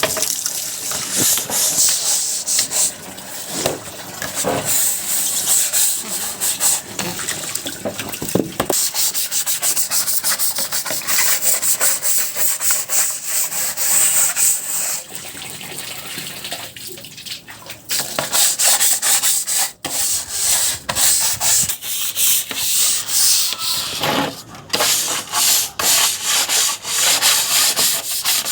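Rapid, repeated rasping strokes of a chicken-cage droppings tray being scrubbed clean, going on with only short pauses.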